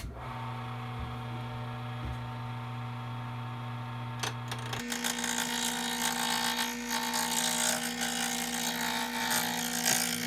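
Small wood lathe switched on and running with a steady motor hum. About five seconds in, the hum steps up in pitch and a hand-held turning tool starts cutting the spinning glued-up wooden pen blank, adding a rough scraping hiss.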